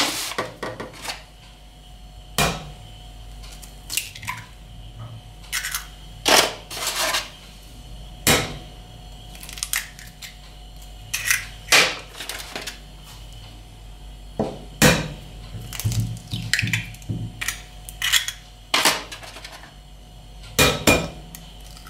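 Eggs being cracked one after another on the rim of a glass mixing bowl: sharp taps and shell cracks every second or two.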